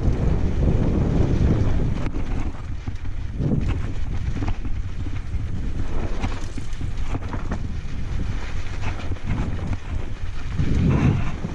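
Wind rushing over the microphone of a downhill mountain bike riding fast over loose volcanic rock, with the rumble of the tyres on gravel and scattered clatters and knocks as the bike rides over stones. The wind is heaviest for the first two seconds and surges again near the end.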